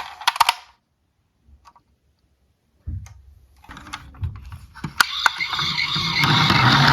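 Small diecast toy cars clicking and clinking together. About three seconds in, a continuous rattling rumble of small wheels rolling on a plastic slope starts and builds.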